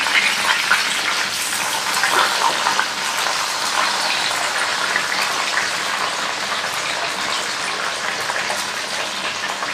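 Whole green tomatoes and green chillies sizzling in hot oil in a wok: a steady frying hiss with fine crackles.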